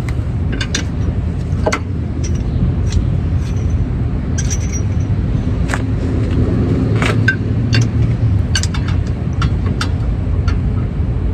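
Hand tools working on a car's brake caliper, giving scattered light metal clicks and taps over a steady low rumble.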